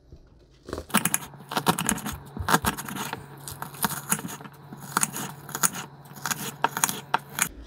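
Kitchen knife cutting an onion on a ceramic plate: quick, irregular clicks of the blade hitting the plate several times a second, starting about a second in.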